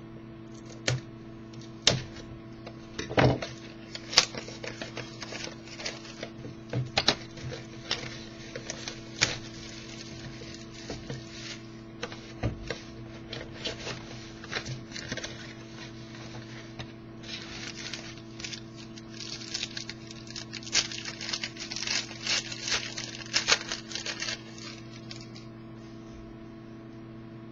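Trading card box and packs being opened by hand: irregular crinkling, tearing and snapping of plastic wrappers and cardboard, denser in a run in the second half, over a steady electrical hum.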